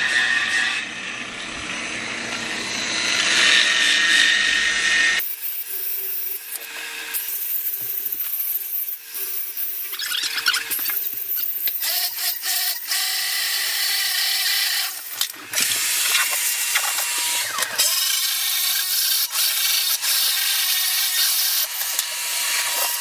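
Power drill with a diamond faucet-hole core bit grinding through a Fantasy Brown stone countertop slab, a continuous rough grinding and scraping. The sound changes abruptly about five seconds in.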